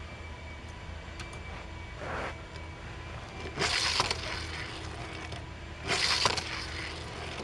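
Die-cast toy car rolling across a hard surface in three short scraping rushes, about two seconds in, near the middle and again near the end.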